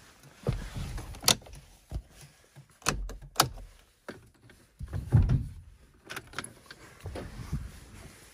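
Scattered sharp clicks and dull knocks in a car's cabin, mixed with handling noise.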